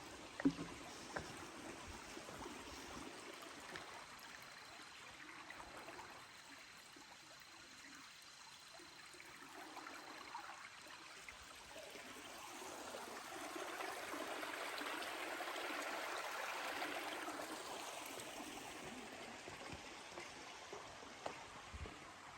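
Water of a small stream or brook running, growing louder for several seconds past the middle and then fading again.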